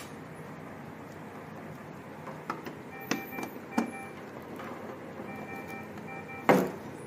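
Small plastic clicks and cable handling as a blood-pressure hose is pushed onto a patient monitor's NIBP port, ending in one sharp click about six and a half seconds in as the connector snaps home. Faint steady tones come and go in the background.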